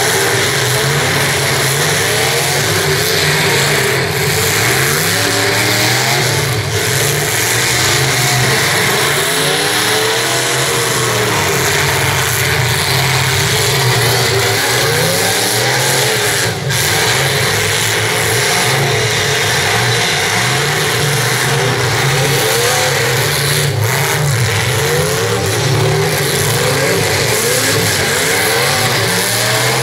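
Several demolition derby cars' engines revving over and over, their pitches rising and falling across one another without a break.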